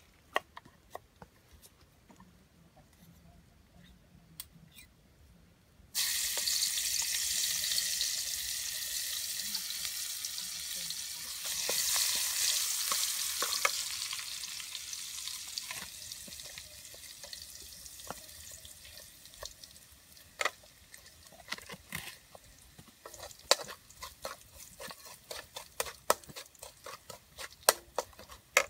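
Knife tapping on a wooden cutting board, then about six seconds in a sudden loud sizzle from hot oil in a metal wok that swells again a few seconds later and slowly dies down. Near the end, many sharp clicks of a metal ladle stirring and scraping in the wok.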